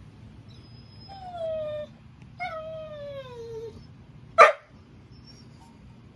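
German Shorthaired Pointer whining for his tug toy: two drawn-out whines that slide down in pitch, the second longer, followed about four seconds in by one short, loud bark.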